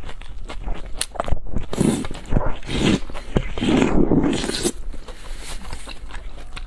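Close-miked slurping and chewing of saucy black bean fire noodles: several noisy slurps, the longest about four seconds in.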